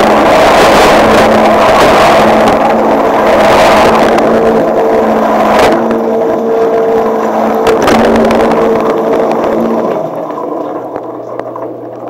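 Dishwasher wash cycle heard from inside the tub: a loud hiss of water spraying over the racks and the camera, over the steady hum of the wash pump motor. About ten seconds in the spray dies down, leaving a quieter low hum.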